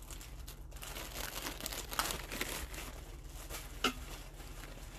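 Plastic zip-top bag being pulled open and handled, the film crinkling, with a couple of sharper clicks, the loudest about four seconds in.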